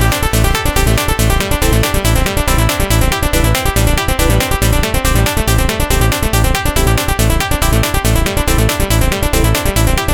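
Electronic trance music at full intensity: a steady, fast beat with pulsing deep bass under layered sustained synth notes.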